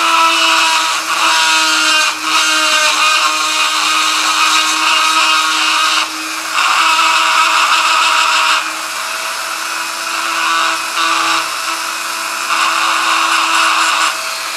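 Dremel rotary tool with a diamond bit running at a steady high whine, grinding at the hoof of a toy figure in repeated passes. The grinding hiss swells each time the bit bears on the piece and drops back between passes.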